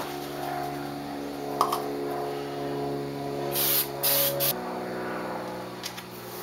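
3M General Purpose 45 spray adhesive aerosol can hissing in two short sprays, about three and a half seconds in, over a steady hum.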